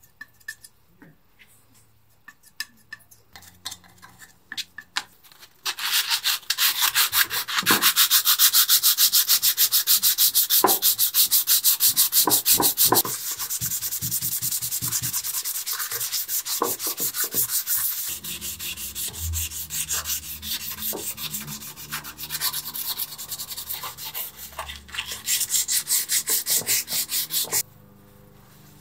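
Dried filler putty on a metal kitchen-scale pan being sanded down by hand: fast, continuous back-and-forth rasping strokes that begin about six seconds in, after a few faint scrapes and taps, and stop abruptly near the end.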